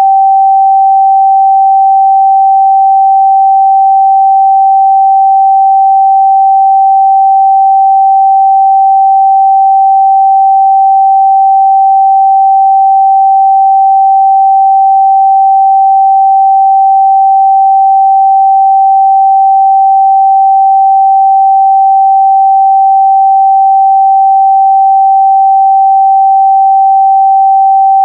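A steady, loud 777 Hz pure sine-wave test tone, held at one pitch without change.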